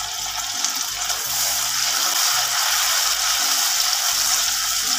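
Chopped tomatoes sizzling in hot oil with frying onions and curry leaves in a steel kadai: a steady hissing sizzle that grows a little louder about a second in.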